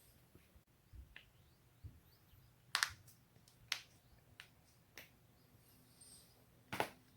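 Joints cracking: a run of separate sharp pops, with a close double pop a little before the middle and the loudest pop near the end.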